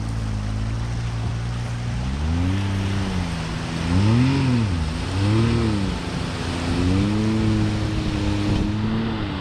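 Can-Am Maverick X3 Max side-by-side's turbocharged three-cylinder engine revving up and down several times as the machine wades through a flooded creek with a trailer in tow. Under it is the steady rush of the muddy water.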